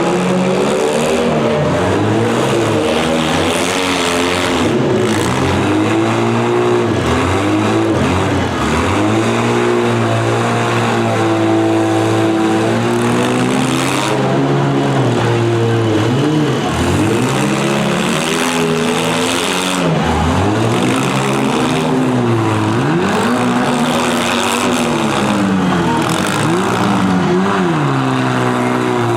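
Several demolition derby car engines running loudly at once, revving up and falling back again and again, their pitches overlapping.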